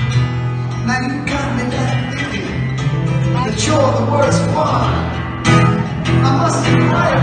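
Solo acoustic guitar played live, strummed and picked chords ringing over held low bass notes.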